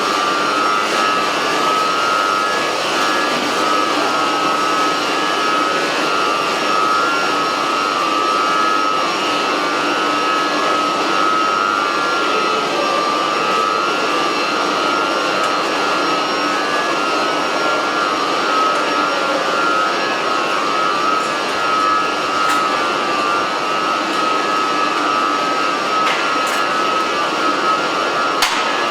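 Loud, steady machine noise with a constant high whine, the even sound of running machinery. A few light clicks come near the end.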